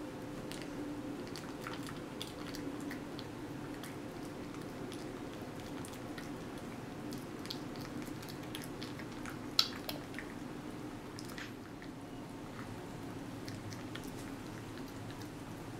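A cat chewing and licking banana, with small wet smacking clicks scattered throughout and one sharper click about two thirds of the way through, over a steady low hum.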